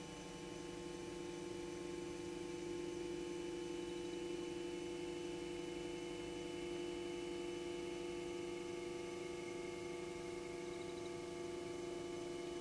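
Steady, even hum made of a low tone with a faint high whine above it, unchanging in pitch and level.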